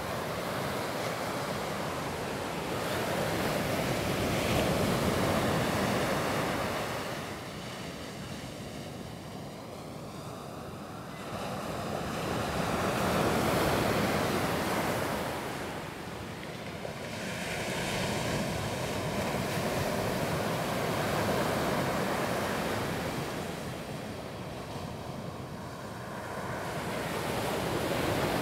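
Ocean surf breaking on a sandy beach, a steady wash of noise that swells and fades with each set of waves, about every seven to eight seconds.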